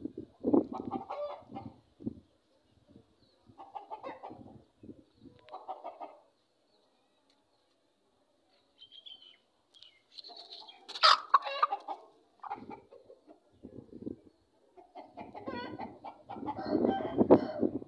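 A hen clucking in short bouts with pauses between them, the loudest bout near the end. A single sharp knock comes near the middle.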